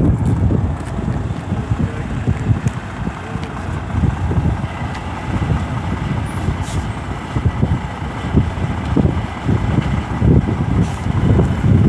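Semi-truck's diesel engine running at low speed as the tractor-trailer creeps through a cone course, heard from across the lot with wind gusting on the microphone.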